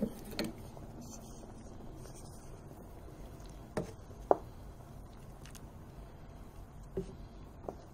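A metal utensil knocking and clinking against a pot of soup: about six scattered knocks, the loudest a short ringing clink about four seconds in, over a low steady background.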